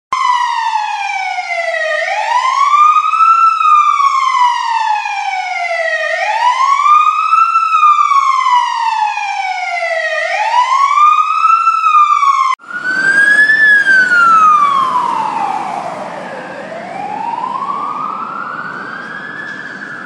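Fire truck electronic siren wailing in a repeating cycle about every four seconds: a quick rise in pitch, then a longer fall. About twelve and a half seconds in it cuts to a slower wail over a bed of engine and road noise, falling once and then rising.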